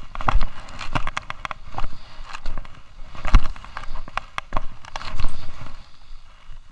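Skis scraping and chattering over firm groomed snow on a descent, with irregular clicks and knocks and a few heavy thumps, picked up by a chest-harness action camera.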